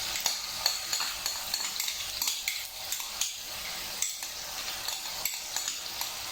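Lamb and freshly added ginger and garlic sizzling in hot oil, with a spoon scraping and clicking against the pan as it is stirred many times.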